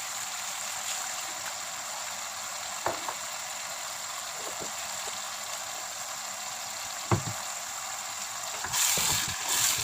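Blended dried-chilli paste sizzling steadily in hot oil in a pan, being cooked down until the oil separates. A couple of sharp knocks come about three and seven seconds in, and the noise grows louder near the end.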